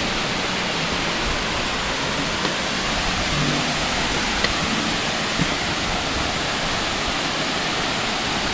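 Steady rush of falling water from a waterfall.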